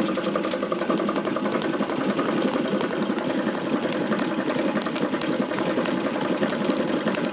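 Old belt-driven air compressor running steadily, driven by an electric motor on a variable frequency drive, making a rattling racket throughout. The racket comes from a pulley that is not straight, which makes the compressor bounce.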